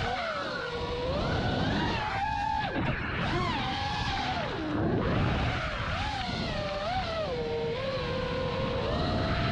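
Brushless motors of a 6S FPV freestyle quadcopter (T-Motor F40 IV) whining, their pitch sweeping up and down continually as the throttle is worked, dropping low about four and a half seconds in before climbing again.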